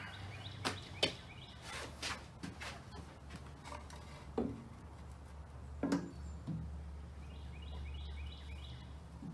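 Scattered knocks and clunks of heavy steel machine parts being lifted and set into a jointer-planer, with a few heavier thuds about four and six seconds in, over a low steady hum.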